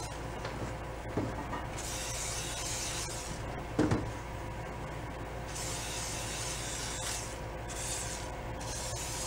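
Aerosol penetrating spray hissing in several bursts, each a second or two long, onto a seized rear wheel hub and chain to free them up. Between bursts the wheel rubs as it is worked by hand, with one short knock about four seconds in.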